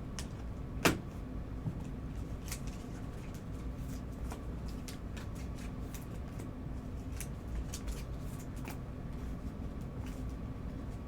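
Prizm basketball trading cards being handled and sorted by hand: scattered light clicks and slides of card stock, with one sharper tap about a second in, over a steady low hum.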